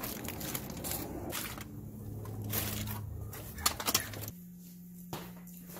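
Aluminium foil crinkling as gloved hands handle it, with two sharp clicks shortly before it stops. About four seconds in, it gives way to a quieter, steady low hum.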